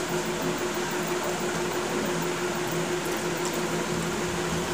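Steady low electric hum and hiss, like a running fan, with a few faint soft clicks of hand-eating from steel plates.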